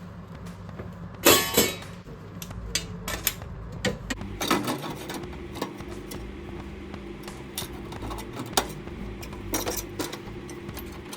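MIG welder laying short practice tack welds on scrap 1 mm steel with 0.6 mm wire: brief crackling bursts, the loudest about a second in, among sharp metallic clicks and clinks over a steady hum.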